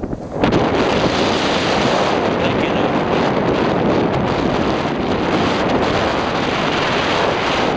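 Wind rushing loudly over the microphone of a skier moving fast downhill, mixed with the skis scraping and hissing over packed snow; it rises sharply about half a second in and then holds steady.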